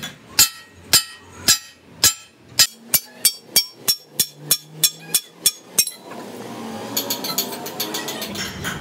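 Hammer striking a steel rear axle-shaft flange: about sixteen sharp metal blows that come faster as they go, stopping about six seconds in. A softer, quicker run of clicks follows.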